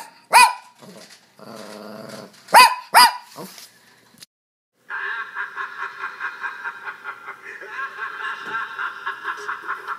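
A small dog, a toy poodle, barks once, growls briefly, then barks twice more. After a short silence, music with a steady pulse begins about halfway through.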